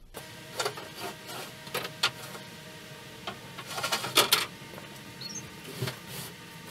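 Long wooden boards being handled and shifted on a workbench, knocking and clattering against each other at irregular moments, loudest in a quick cluster about four seconds in, over a steady electrical hum.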